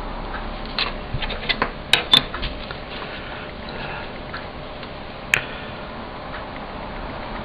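Light, irregular clicks and taps as a printed circuit board and small tools are handled on the bench: a cluster of them about a second in and one sharp tap past the middle, over a steady hiss.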